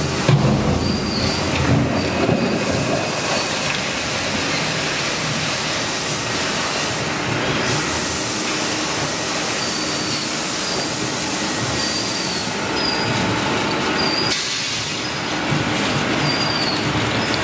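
Double-shaft shredder running and tearing up plastic drums: a steady, dense grinding crunch with short high squeaks recurring every second or two.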